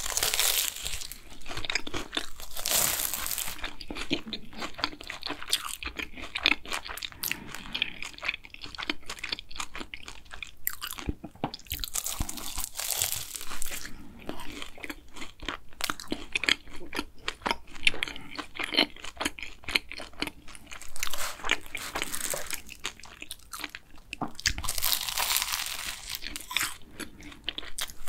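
Close-miked bites into a green tea ganache cronut: the flaky, fried croissant-dough crust crunches and crackles with each bite, followed by chewing. Several louder bites come a few seconds apart, with crunchy chewing in between.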